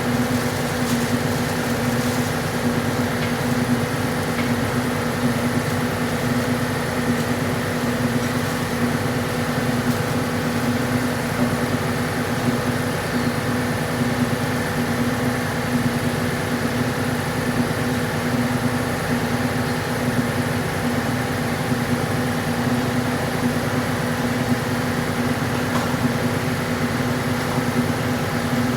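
A steady motor drone with a constant hum, running evenly and unchanged throughout.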